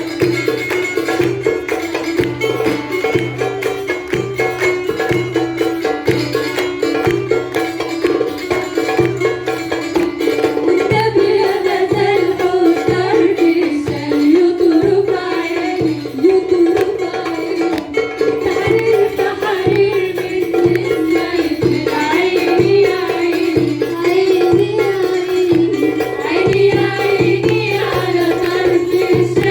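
Port Said simsimiyya folk music played live: the plucked simsimiyya lyre with hand percussion in a steady, even beat, and a voice singing over it in the later part.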